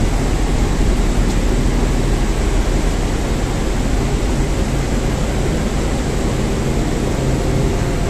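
A ship's central air-conditioning plant running, its ventilation fan and heater on: a steady, loud machinery noise with a low hum underneath.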